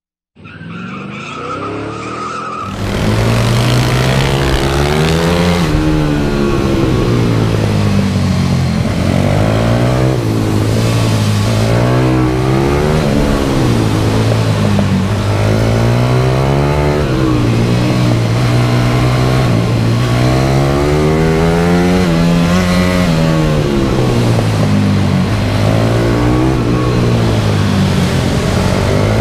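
150cc pitbike engine heard onboard, its pitch repeatedly rising under acceleration and falling back every few seconds as the bike is ridden hard around a tight indoor kart track. It is quieter for the first three seconds, then loud and continuous.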